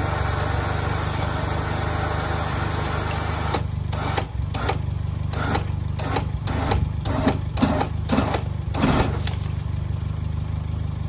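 Geo Tracker's engine idling steadily while its winch pulls on a strap, with a winch whir for the first three or four seconds. From about four seconds in comes an irregular run of sharp knocks and clanks as the broken cable stub is pulled loose from the dozer's winch drum.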